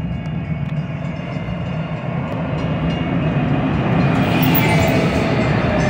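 DART light rail train pulling into the platform, its rumble on the rails growing louder as it comes alongside. A hiss builds up, and a faint falling whine comes in near the end.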